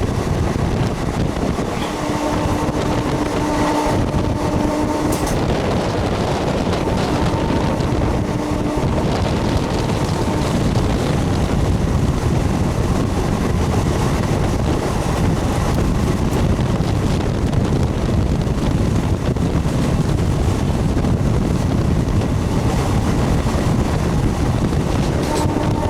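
MEMU electric train running along the track: a steady rumble of wheels and running gear with wind noise. A faint humming tone comes and goes a few times.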